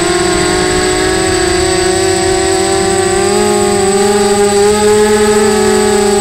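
Mini T4 quadcopter's electric motors and propellers whining loudly close to the onboard camera. The pitch dips about a second in and climbs again from about three and a half seconds as the throttle changes.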